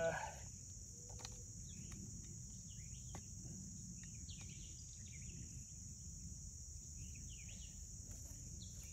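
Steady high-pitched chorus of crickets, with a brief louder call right at the start and a few faint taps.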